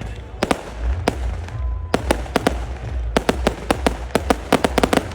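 String of firecrackers going off: single sharp cracks at first, then a rapid, irregular volley from about three seconds in, over a low rumble.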